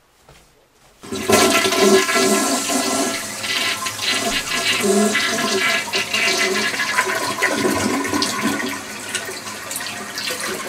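Shower running: a steady rush of spraying water that starts suddenly about a second in.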